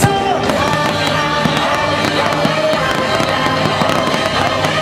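Aerial fireworks shells bursting in a run of bangs over loud music, with the sharpest bang right at the start.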